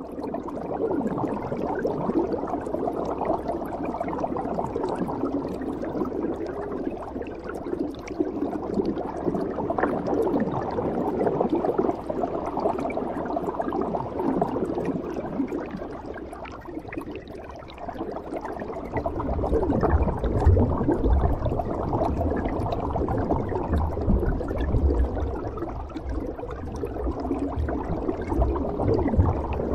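Scuba divers' exhaled regulator bubbles gurgling and rushing, heard underwater as a muffled, steady wash. A deep rumble joins about two-thirds of the way in.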